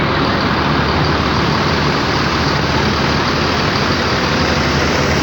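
Tour bus diesel engine idling, a steady low rumble under a loud, even hiss that does not change.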